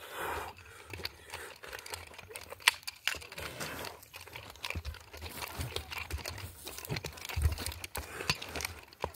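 Irregular crunching and clicking as a nunchaku is swung and feet shift on dry straw and earth, with one sharper knock about three seconds in.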